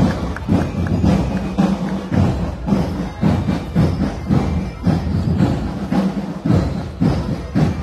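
Marching drum band playing a parade march, its drums beating a steady, loud rhythm.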